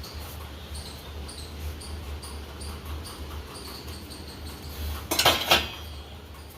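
A dishwasher hums steadily, with faint short high squeaks about twice a second. There is a brief loud clatter about five seconds in.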